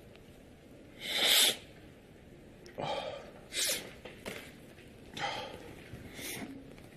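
A person's breathy vocal bursts: one loud sneeze-like burst about a second in, then several shorter gasping or snorting breaths.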